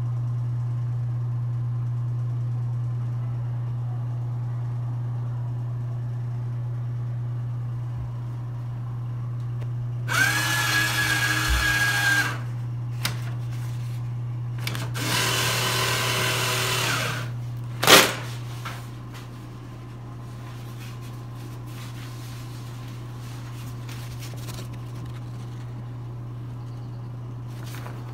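Georgia-Pacific enMotion automated touchless paper towel dispenser's motor running twice, each run about two seconds with a whine that rises as it starts, feeding out towel. A single sharp crack follows shortly after the second run, over a steady low hum.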